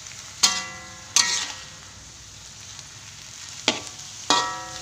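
Metal spatula tossing water spinach in a wok, clanking against the wok four times with a short metallic ring after each strike, over the steady sizzle of stir-frying.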